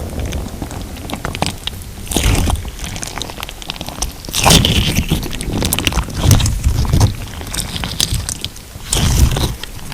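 Hands squeezing and pressing a thick putty-like crunch slime packed with glitter plates, giving dense crackling and crunching clicks, with louder squishes about two seconds in, again from about four and a half to seven seconds, and near the end.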